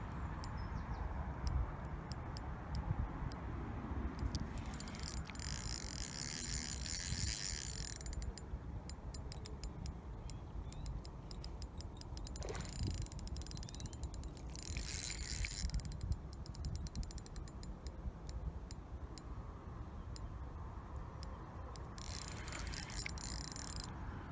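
Fishing reel's clutch (drag) ratcheting as a hooked carp pulls line. Scattered single clicks are broken by three runs of fast, dense ticking, about five seconds in, around fifteen seconds and near the end, over a steady low rumble.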